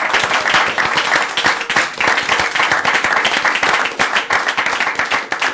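A small audience applauding, many hands clapping steadily.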